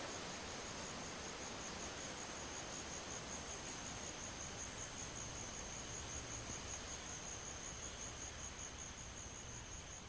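Jungle insect calling with a steady, high, finely pulsing trill over a soft even hiss of background noise.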